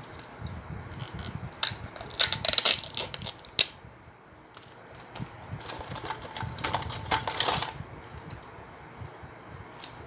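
Small plastic pudding cup and its peel-off lid crackling and clicking as they are handled, in two bursts: one about two seconds in, the other from about five to eight seconds in.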